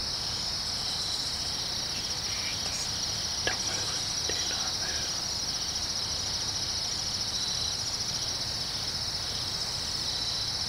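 A steady, high-pitched chorus of insects trilling without a break, with a faint click about three and a half seconds in.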